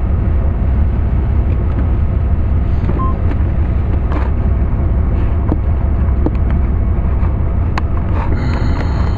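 Steady low rumble of a car engine running as a minivan rolls slowly past at walking pace.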